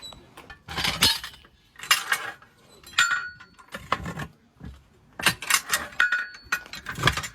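Irregular sharp metallic clinks and knocks of tools striking metal, about a dozen strikes, some leaving a brief ring.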